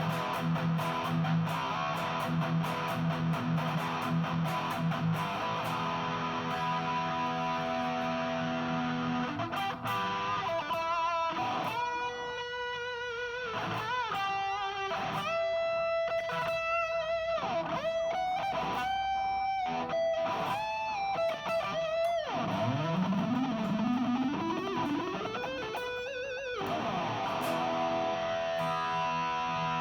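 Epiphone SG electric guitar played through a Nux Mighty Air amp on its distorted tone: chords for about the first third, then single-note lead lines with bends and vibrato, a long rising slide near two-thirds through, and chords again near the end.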